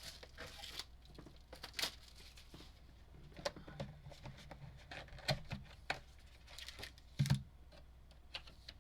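A box of trading card packs being opened by hand: wrapping and cardboard tearing and crinkling, with scattered clicks and a few light knocks. The loudest knock comes about seven seconds in.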